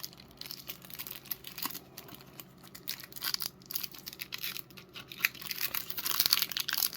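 Plastic wrapping on a pack of trading cards crinkling and crackling as fingers pick at it and try to tear it open by hand. The crackles come in irregular small bursts and get busier near the end.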